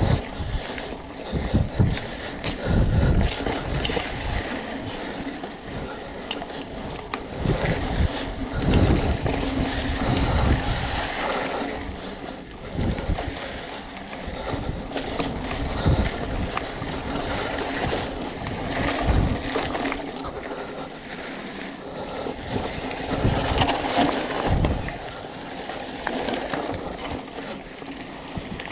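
A hardtail mountain bike (BMC Twostroke AL 2) riding a dirt singletrack: tyres rolling and the bike clattering over bumps and roots in frequent short knocks, with wind rushing over the microphone.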